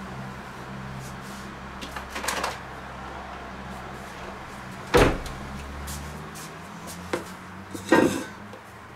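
Kitchen handling noises over a steady low hum: a few knocks, with a sharp door-like bang about five seconds in and a stainless steel mixing bowl knocked and shifted on a wooden cutting board near the end.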